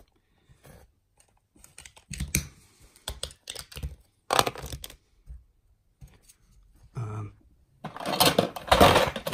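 Large plastic Lego bricks knocking and clicking as they are handled and pressed onto a baseplate: a few separate knocks, then a dense burst of clattering near the end.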